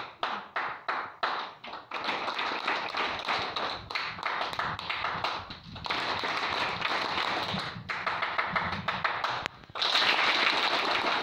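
Audience applauding: a few separate claps that quickly thicken into dense applause, swelling louder about ten seconds in before fading away.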